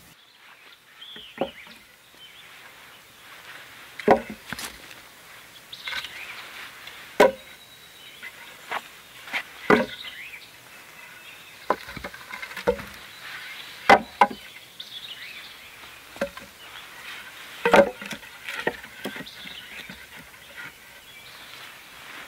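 Short cut wooden sticks knocking against each other and against the side poles as they are laid one at a time across a pole bed frame, a sharp wooden knock every second or two.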